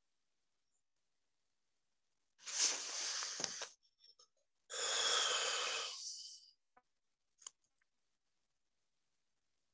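Two long, heavy breaths close to the microphone, each lasting over a second, from a woman choked up with emotion while reciting a poem, followed by a faint click.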